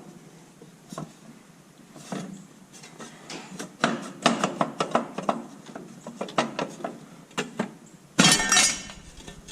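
Hand tools and the sheet-metal dash panel of an Oliver 1855 tractor clinking and tapping as the panel is worked loose. A louder clatter of about half a second comes near the end, as the panel comes free.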